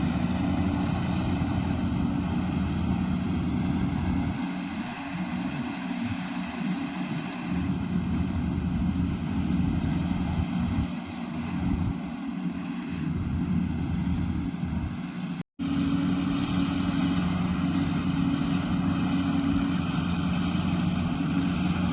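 Goose GS1028 rice combine harvester running steadily in the field, a continuous diesel engine hum with a fluctuating low rumble. The sound cuts out for an instant about fifteen seconds in.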